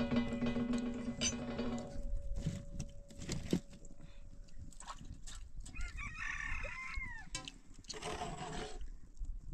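A rooster crowing once, an arching call of about a second and a half, around six seconds in. Before it, held background music dies away about two seconds in, with light knocks of metal kitchenware being handled; a brief rustling rush comes near the end.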